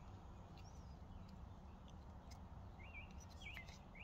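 Faint chirps of a small bird over a low, steady background rumble, a quick run of chirps coming in the second half.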